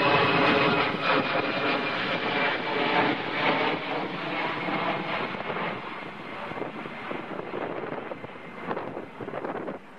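Twin-engine jet airliner on its landing approach: engine noise with a thin high whine in the first few seconds, mixed with gusty wind on the microphone, easing gradually quieter.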